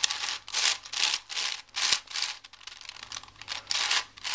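V-Cube 7 Illusion 7x7x7 puzzle cube being turned by hand: its plastic layers make quick scraping clicks, about two turns a second.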